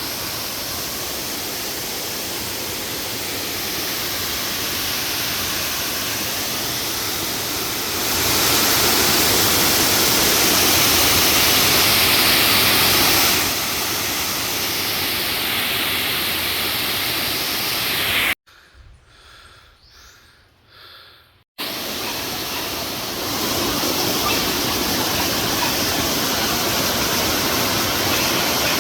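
Waterfall pouring, a steady rushing noise that grows louder for a few seconds in the middle. It cuts out abruptly for about three seconds about two-thirds through, then returns.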